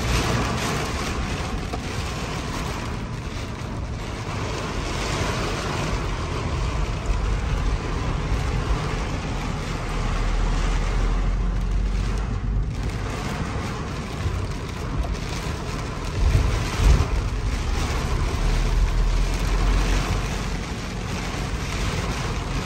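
Heavy rain beating on a car's roof and windscreen, heard from inside the car as a steady hiss. Under it runs a low rumble that swells at times, from the storm's wind buffeting the car.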